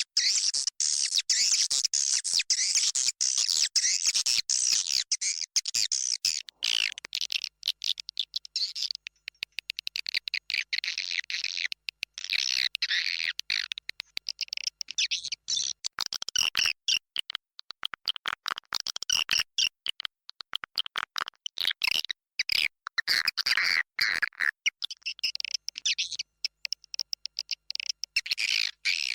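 Swiftlets twittering and chirping densely, a colony recording from a swiftlet house played as a lure call to draw the birds in to nest. The high chatter runs without a break, chopped by many very short gaps.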